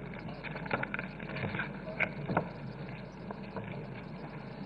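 Room tone of a large hall's sound system: a steady low hum with faint background murmur and a few light ticks about two seconds in.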